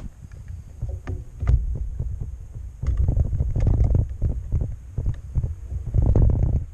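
Wind buffeting the microphone of a handlebar-mounted camera on a moving bicycle: an uneven low rumble that swells about three seconds in and again near the end. A few light clicks and rattles from the bike go with it about a second in.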